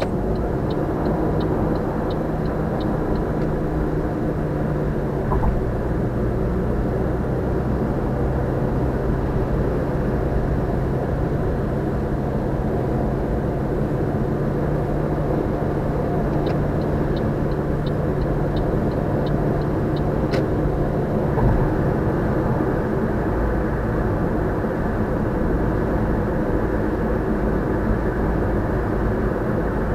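Steady road and tyre noise of a car cruising at constant expressway speed, heard from inside the cabin, with a low hum that drops away about two-thirds through. Two short runs of light, evenly spaced ticking come in the first few seconds and again about two-thirds through.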